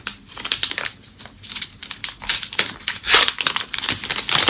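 Brown kraft-paper wrapping being torn open and unfolded by hand: irregular crinkling and rustling, loudest about three seconds in.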